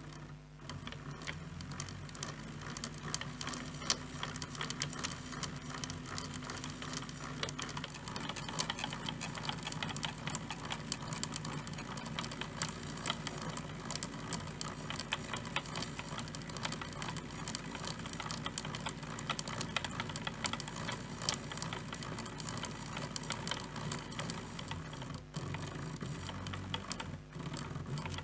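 Salvaged unipolar stepper motor running and driving the printer's Z-axis lead screws through a timing belt: a rapid, even mechanical clatter of steps over a low hum, with two brief dropouts near the end.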